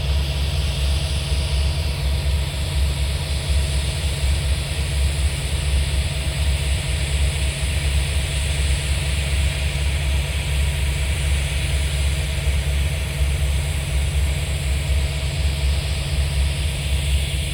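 An engine idling steadily: a constant low rumble with a faint steady tone, and an even hiss over it.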